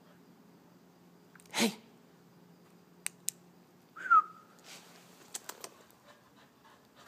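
Chow chow puppy making a short sharp huff of breath, then a few seconds later a brief high-pitched yelp that drops in pitch, the loudest sound here. A few light ticks follow.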